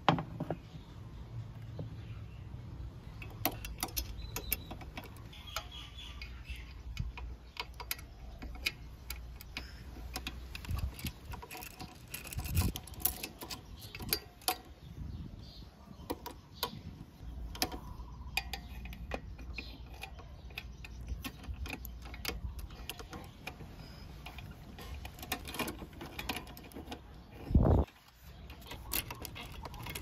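Scattered metallic clicks and clinks of hand tools, a small ratchet with extension and socket, being worked against metal under a scooter, over a steady low rumble. One louder dull thump comes near the end.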